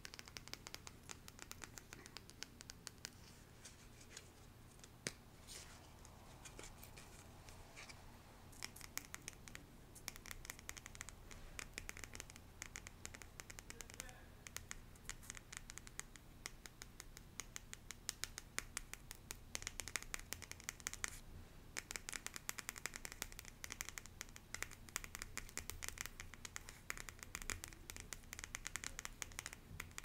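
Long fingernails tapping quickly on a small printed cardboard box, in dense flurries of light clicks with a brief pause about two-thirds of the way through.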